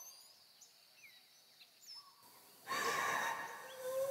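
Faint bird chirps, then about two and a half seconds in a sudden breathy rush of noise that lasts just over a second. Near the end a steady low hum comes in.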